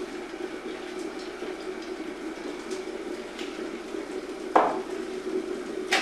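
An electric kettle heating water, a steady low rumble with a hiss. About halfway through, a ceramic mug is set down on a wooden table with a sharp clunk, and there is a lighter knock near the end.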